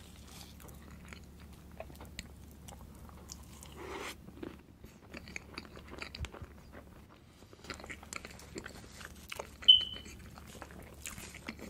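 Close-miked eating of a mille crêpe cake doused in maple syrup: many small wet mouth clicks, smacks and chewing, and a fork pressing through the soft cake layers. About ten seconds in there is one short high squeak, the loudest sound here.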